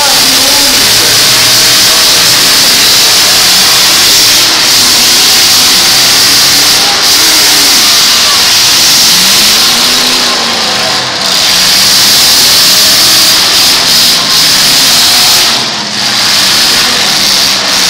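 Demolition derby pickup trucks' engines revving and running hard together in a loud, steady din, with the engine pitch rising and falling about ten seconds in.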